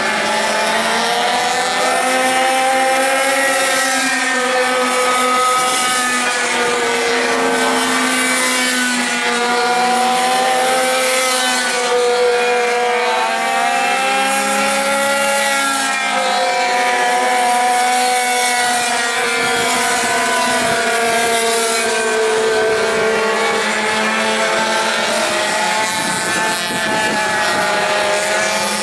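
Several pocket-bike (minibike) racing engines running together, high-pitched and continuous. Their pitches rise and fall as the riders throttle up on the straights and roll off into the corners.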